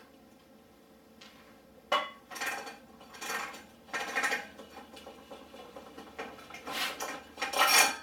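Motorcycle roller drive chain, freshly split, clinking and rattling as it is pulled off the sprockets. The clatter comes in a series of metallic rattles starting about two seconds in, with the loudest near the end.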